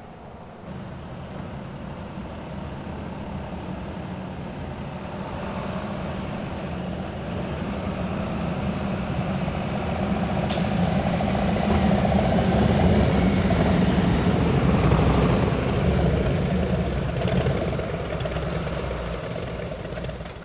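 A procession of police motorcycles riding slowly past, their engines running and growing louder to a peak about two-thirds of the way through, then easing off as following patrol cars and fire engines go by. A brief sharp tick about halfway through.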